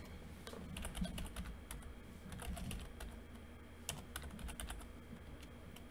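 Computer keyboard being typed on: an irregular run of light key clicks, over a faint low hum.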